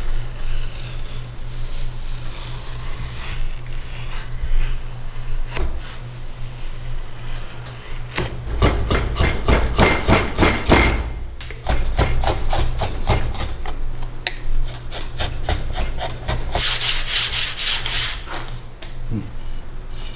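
A hand edge tool scraping and shaving a wooden scabbard blank held in a bench vise, curling off wood shavings. Two runs of fast, close scraping strokes, about a third of the way in and again near the end, are the loudest part.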